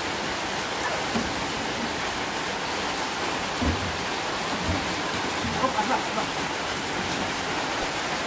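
Steady rain falling, an even hiss, with a couple of soft low thumps partway through.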